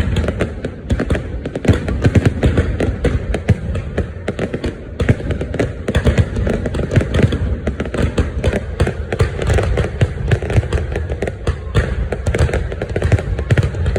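Fireworks going off nonstop, many bangs and crackles a second overlapping into a dense barrage with no let-up.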